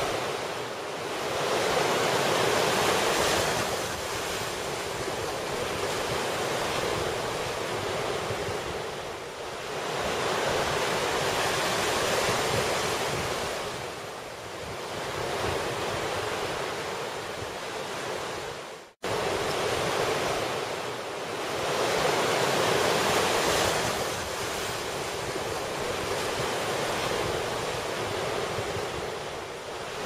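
Sea surf washing over a rocky shore: a steady rushing noise that swells and ebbs every several seconds. It cuts out for a split second about two-thirds of the way through.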